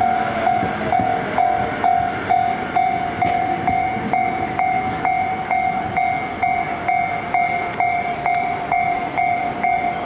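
Japanese railway level-crossing electronic warning bell ringing in even strikes, a little over twice a second. Beneath it is the low running noise of a Tobu 50000-series electric train passing and pulling into the station.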